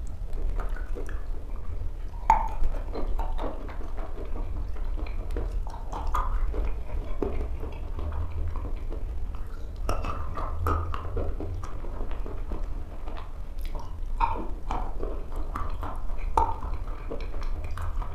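Close-miked chewing of wet chalk: irregular crunches, crackles and wet mouth clicks, over a low steady hum.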